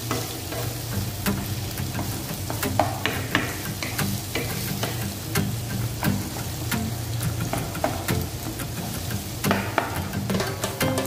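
Shrimp, onion and garlic sizzling in oil in a nonstick wok, stirred with a wooden spatula that knocks and scrapes against the pan many times.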